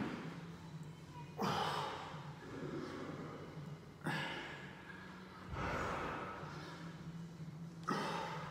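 A man's heavy, forceful exhalations, four of them roughly every two seconds: hard breathing from the effort of push-ups, one breath with each rep.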